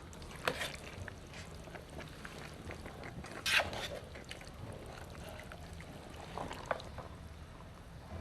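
Cooking sounds at a pot of curry: a few sharp clinks and knocks of utensils, the loudest about three and a half seconds in, with liquid sloshing and pouring.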